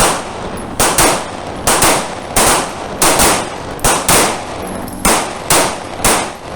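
Pistol shots from several shooters on a firing line, about fourteen sharp reports at an uneven pace of roughly two a second, some coming in close pairs, each with a short echoing tail.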